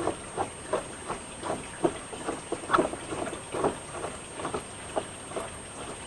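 A plastic pipe fitting being screwed by hand onto a siphon standpipe through the bottom of a gutter, giving short scraping creaks about twice a second as the threads turn. A thin, steady high-pitched whine from audio interference runs underneath.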